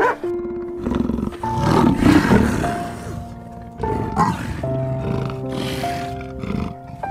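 A big cat gives several rough calls, the loudest about two seconds in, over background music of held notes.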